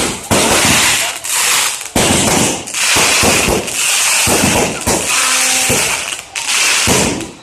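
Aerial fireworks going off in quick succession: a rapid series of loud bangs, one or two a second, with crackling and hissing from the bursting shells between them.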